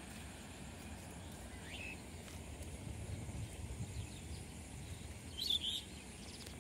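Outdoor ambience of wind rumbling on the microphone, with brief bird calls: a short rising chirp about two seconds in and a louder call near the end.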